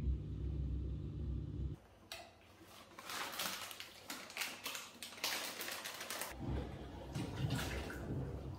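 A dishwasher running, water swishing over a steady low hum, cut off suddenly. Then an electric kettle hisses and crackles as it heats, and near the end water and handling sounds at a steel kitchen sink come in over a low hum.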